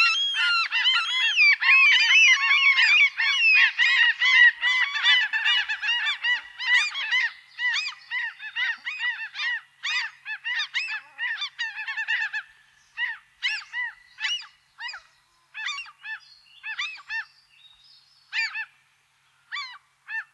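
A flock of birds calling, many short honking calls overlapping at first, then thinning out after about seven seconds to scattered single calls with pauses between them.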